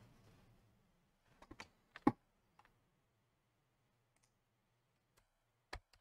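A series of sharp, irregular clicks from an HP laptop's touchpad being pressed: a quick cluster about a second and a half in, the loudest click about two seconds in, and two more near the end.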